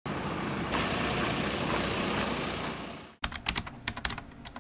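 Steady, even background noise for about three seconds that fades and cuts off, followed by a run of sharp, irregular clicks.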